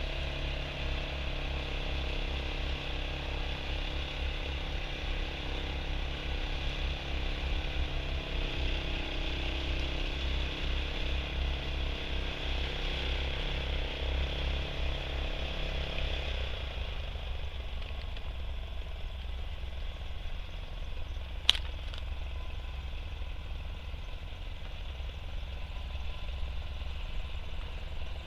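A steady mechanical hum with a low rumble, like a motor or engine running. The rumble and the hum's pitch change and thin out a little past halfway, and there is one sharp click about two-thirds of the way through.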